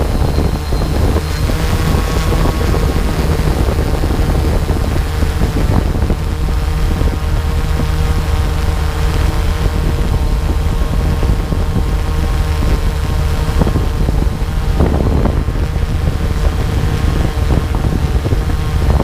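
Drone's rotors running steadily in flight: a loud, even hum with a steady tone, with wind buffeting the microphone.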